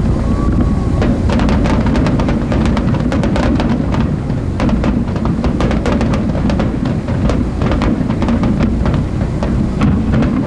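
Aerial fireworks bursting overhead: rapid crackling and popping over a continuous low rumble of booms, wind and boat noise.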